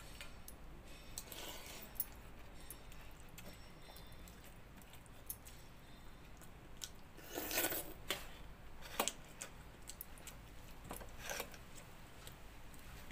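Hand-eating of pakhala, rice soaked in water: fingers working the wet rice in a steel bowl and mouth sounds of eating, with scattered small clicks and clinks. A louder, longer wet sound comes about seven and a half seconds in.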